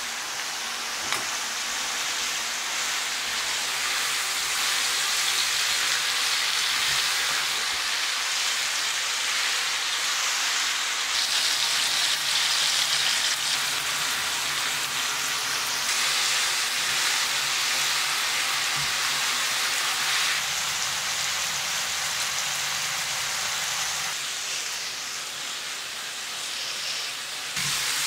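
Beef brisket and cabbage sizzling in a frying pan, a steady hiss that shifts in level several times.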